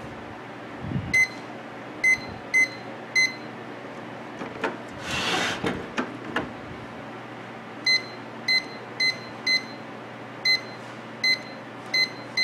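Sharp Carousel microwave oven's control-panel beeper sounding one short high beep for each keypad press. There are eleven in all: four in the first few seconds, then seven more from about eight seconds in. This shows the control board has power again after the fuse repair. About halfway there is a short burst of noise.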